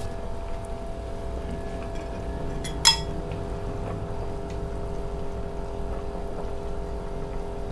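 Metal spoon scooping hot soup broth from a pot and pouring it into a glass bowl, with one sharp clink of the spoon about three seconds in, over a steady low hum.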